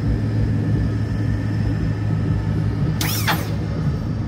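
A vehicle engine idling, a steady low hum, with one brief sharp sound about three seconds in.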